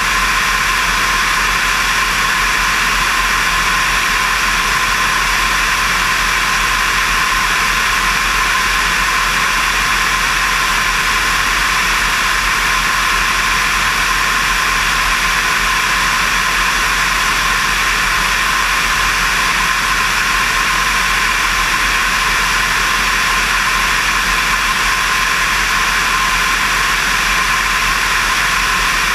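Steady rush of airflow over a wing-mounted camera in flight, mixed with the even drone of a light aircraft's engine.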